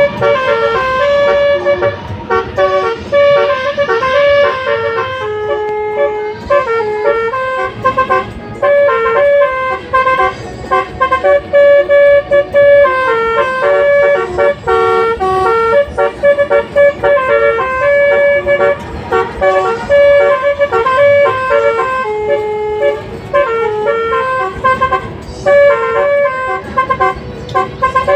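Indonesian bus 'telolet' musical horn playing a tune of quick, stepped notes, several tones sounding together, with only brief breaks between phrases.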